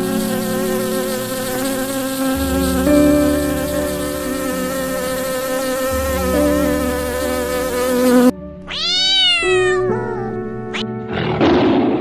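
A flying insect buzzing steadily, with music underneath. About eight seconds in the buzz stops suddenly, and a short pitched animal call rises and then falls away. A brief rough noisy sound comes just before the end.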